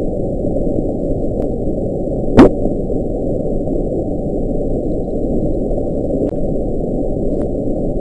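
NOAA hydrophone recording of the Bloop, the 1997 ultra-low-frequency underwater sound, played sped up: a steady low underwater rumble with one brief rising chirp about two and a half seconds in.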